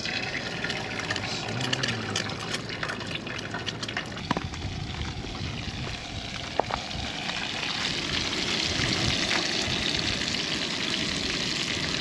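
Breakfast food frying in a pan: a steady sizzle with scattered crackles, growing louder about two-thirds of the way in.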